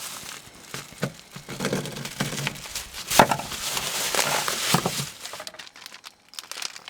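Crinkling and rustling of things being handled, with scattered clicks and knocks, the sharpest knock about three seconds in.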